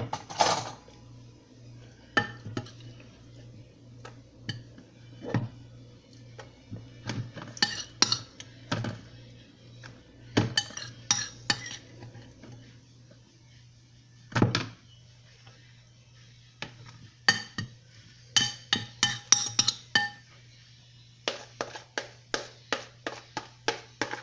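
Metal cutlery clinking and knocking against a dish while food is scooped and mixed: scattered sharp clinks, some ringing briefly, then a quick run of even taps, about three a second, near the end. A faint steady low hum lies under it.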